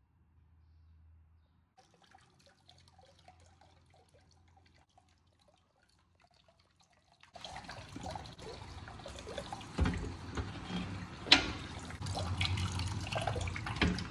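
Tap water running into a plastic tub of soapy water, starting after about seven seconds of near silence, with a couple of sharp knocks along the way.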